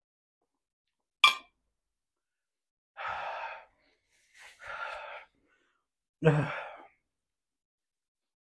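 A metal utensil clinks once against a glass dish about a second in, then a man lets out three heavy, sighing breaths, a couple of seconds apart, while the burn of very spicy noodles makes his eyes and nose run.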